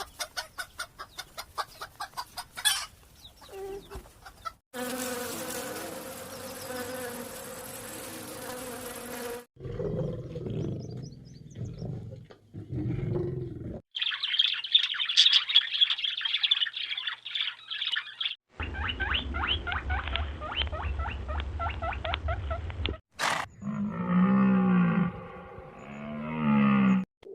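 A string of short animal sound clips cut abruptly one after another, mostly insects buzzing and chirping in fast, even trills, with some pitched animal calls near the end.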